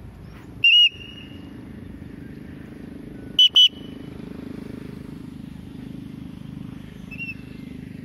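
Loud, shrill whistles close to the microphone, given to recall a free-flying Alexandrine parrot: one about a second in, a quick pair a little past the middle, and a fainter one near the end, over a steady low rumble.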